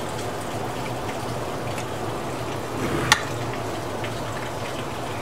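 Steady watery hiss with a low hum underneath, and a single sharp click a little after three seconds in.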